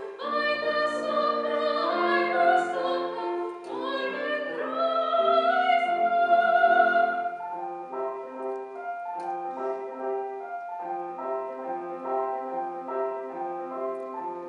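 Classical soprano singing a German art song with Steinway grand piano accompaniment, ending her phrase on a long, loud held high note about seven seconds in. The piano then plays on alone in an interlude of evenly repeated chords.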